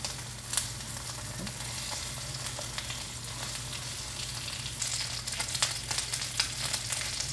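Skin-on chicken frying skin side down in an oiled pan over medium heat, a steady sizzle with scattered pops and crackles from the rendering fat, busier in the second half. A steady low hum runs underneath.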